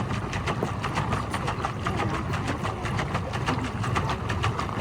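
Pedal paddleboat's paddlewheel churning the water, a rapid, even splashing at about five strokes a second over a low rumble.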